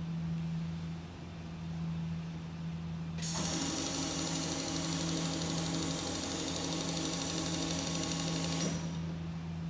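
Industrial side-hemming sewing machine running at speed for about five seconds, with a high whir and hiss. It starts abruptly about three seconds in and stops sharply with a click. A steady low hum sits underneath throughout.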